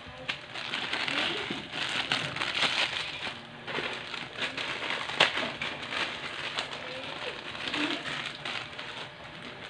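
Plastic instant-noodle packets crinkling as they are handled and emptied, with irregular sharp crackles, over water boiling in a pot.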